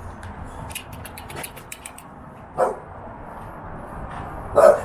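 A bully-breed dog barks twice, two short barks about two seconds apart, the second louder. The owner takes it as protective barking, not aggression.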